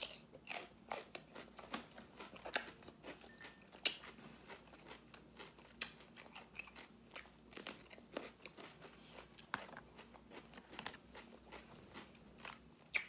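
Close-up chewing of crunchy food: irregular crisp crunches and bites, several a second.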